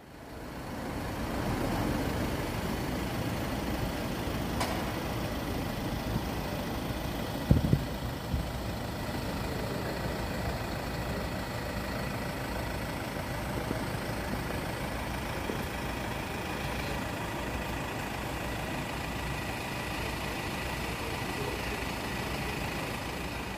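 A parked bus's engine idling steadily, with a single knock about seven and a half seconds in.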